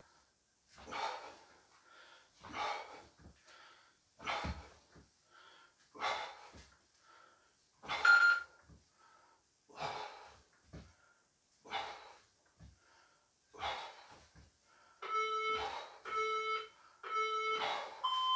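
A person breathing out hard in a steady rhythm, one exhale about every 1.8 seconds, while exercising. Near the end an interval timer gives three short countdown beeps, and a higher beep begins.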